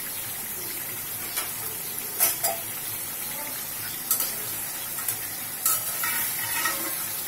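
Hilsa fish pieces sizzling steadily as they fry in spiced oil paste in a metal karai, with a few sharp clicks of a spoon against the pan as the pieces are turned over.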